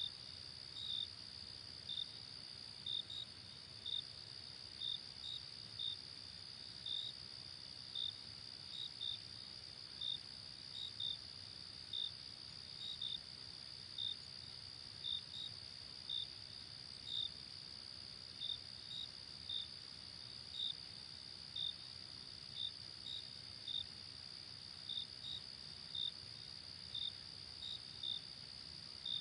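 Crickets chirping: short, bright chirps about once or twice a second over a steady high-pitched trill.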